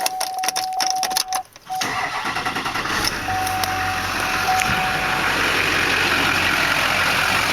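An LB7 Duramax 6.6 L V8 turbo-diesel, due for new injectors, starts up. A few clicks and a steady chime tone come first, the engine catches about two seconds in, and it then settles into a steady idle.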